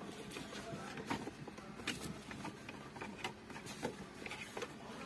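Hands working a car's gear-lever boot over the shift lever: rustling with scattered sharp clicks and knocks.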